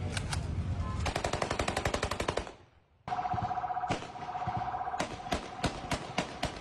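Heavy bursts of automatic gunfire, rapid shots that break off for a moment before three seconds in. When the firing resumes, a steady high tone sounds under it and the shots come at a slower, even pace.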